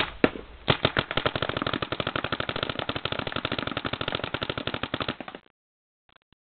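Planet Eclipse Etek2 electronic paintball marker firing in PSP ramping mode. A few single shots are followed, about a second in, by a fast, even stream of shots. The stream stops abruptly about five and a half seconds in.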